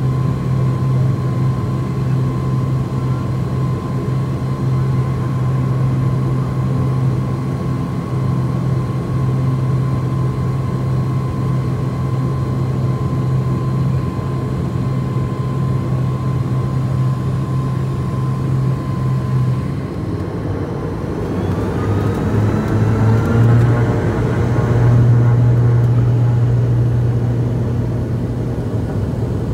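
The ATR72-500's twin Pratt & Whitney PW127 turboprops and six-bladed propellers, heard from inside the cabin as a steady low propeller hum with a faint whine. About two-thirds of the way in the hum shifts and comes back louder, with a rising whine, as the engines spool up, typical of power being set for the takeoff roll.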